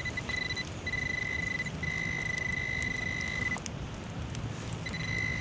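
Handheld metal-detecting pinpointer sounding a steady high beep in several stretches, the longest nearly two seconds, as it is held over a buried metal target. A steady patter of rain sits under it.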